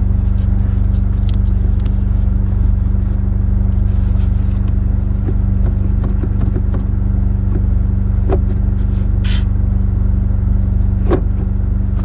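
Honda Civic Si's turbocharged four-cylinder idling steadily, heard from inside the cabin, with a few light clicks in the second half as the manual gear lever is moved through the gates.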